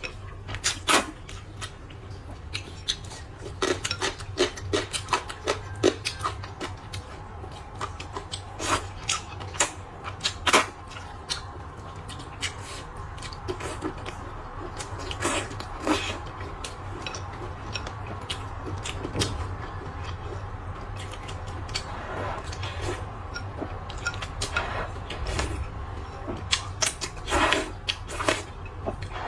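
Someone eating spicy rice noodles: irregular slurps, chewing and sharp clicks over a steady low hum.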